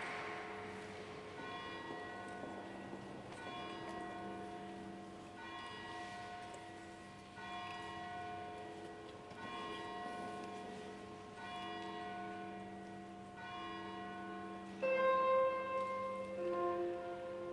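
Mixed choir singing sacred music a cappella in a reverberant stone church: a low drone held throughout under slow sustained chords that change about every two seconds. Higher voices come in louder about fifteen seconds in.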